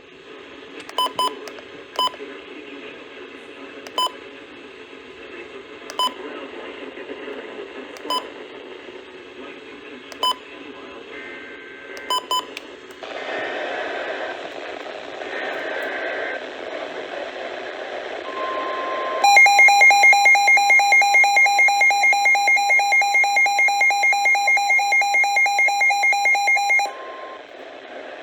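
NOAA Weather Radio Emergency Alert System activation for a severe thunderstorm warning, heard through a weather radio receiver over steady static hiss. Short beeps come about every two seconds, then three warbling SAME header data bursts, then the steady 1050 Hz warning tone. About 19 s in, a loud, rapidly pulsing beep alarm joins it and stops about 27 s in, with the tone ending just after.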